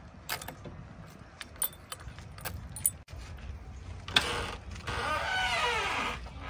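JCB 3DX backhoe loader idling low with scattered clicks and rattles. About four seconds in comes a louder squealing creak that slides down in pitch.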